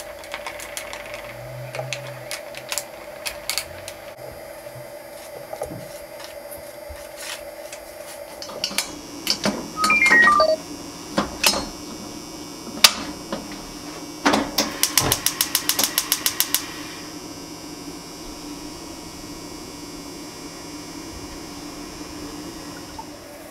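Kitchen handling knocks of a stainless saucepan, then a gas burner's igniter clicking rapidly, about a dozen even clicks in two seconds, as the pan is put on the flame; a steady low hum follows.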